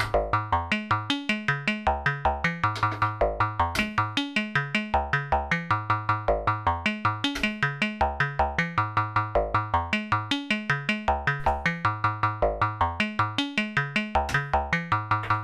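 Eurorack modular synthesizer patch playing a steady, fast stream of short pitched notes, about five a second, over bass notes that step between a few pitches. The pattern is a clocked sequence whose notes are switched by clock-divided events through a Softwire Octal VC Switch.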